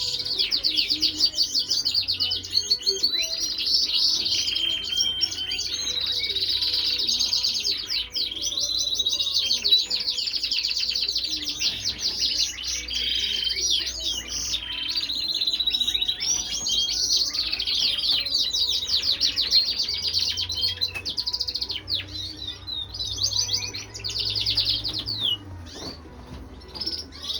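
A group of small birds chirping and chattering continuously in rapid, high-pitched overlapping calls and trills. The chirping thins out near the end.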